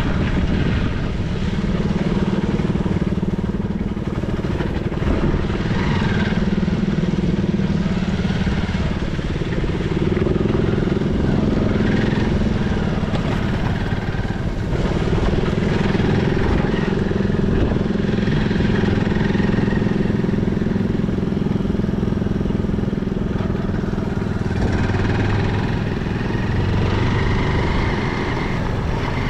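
Motorcycle engine running steadily while riding along, over a constant rush of wind and road noise.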